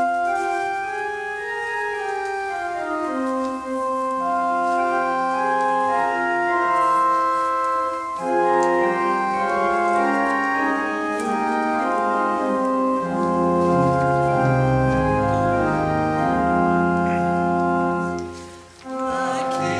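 Church pipe organ playing the postlude: sustained chords in several moving voices, with low pedal notes coming in about two-thirds of the way through. The music drops away briefly near the end.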